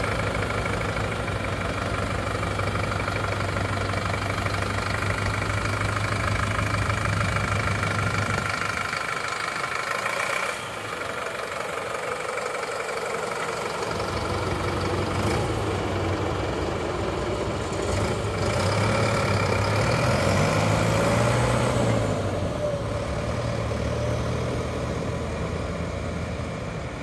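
Fendt Farmer 208F tractor's diesel engine idling steadily. Its low note fades for a few seconds in the middle, and the engine speed rises and falls briefly about two-thirds of the way in.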